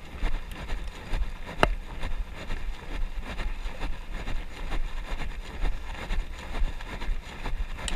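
Wind buffeting an action camera's microphone, a steady low rumble, with scattered light knocks and one sharp click about a second and a half in.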